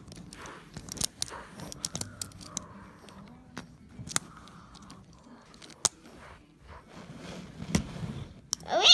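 Scattered light clicks and knocks as die-cast toy engines are handled and moved about by hand. Near the end a loud rising whoop begins.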